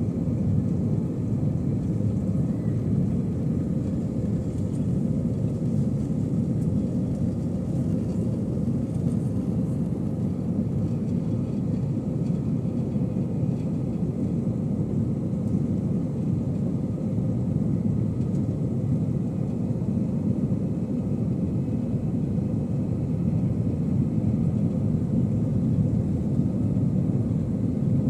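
Steady low rumble of the jet engines and rushing air, heard inside the cabin of an Airbus A321 airliner in flight shortly after takeoff.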